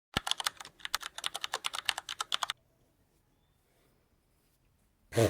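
Rapid clicking, about ten clicks a second for roughly two and a half seconds, then quiet; a single short, louder sound comes near the end.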